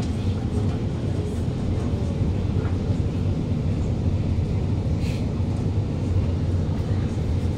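Steady low hum inside an Alstom Movia R151 metro carriage standing at a station, with faint passenger noise and a few light ticks.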